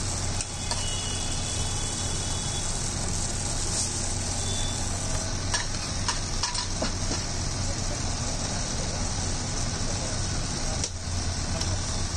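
Steady hiss of a street food stall, with a low hum, and a few light clicks and scrapes of a steel spoon spreading Manchurian filling over a roll about halfway through.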